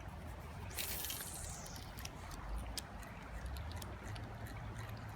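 Creek water trickling, with scattered small ticks and a sudden hiss about a second in that fades away over about a second.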